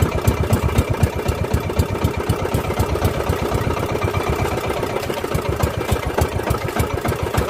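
Small engine of a motorised outrigger fishing boat running steadily under way, with a fast, even beat.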